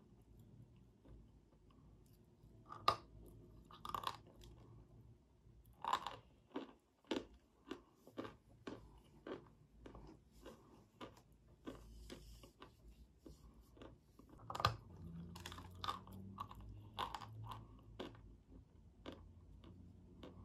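Close-miked biting and chewing of a dry white chalky lump: a few sharp crunches, then a steady run of chewing crunches about twice a second.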